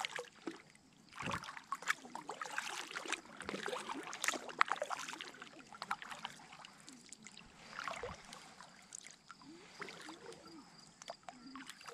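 Kayak paddle strokes: the blades dipping into and pulling through calm lake water, with splashes and drips falling off them, in two runs of strokes with a lull around the middle.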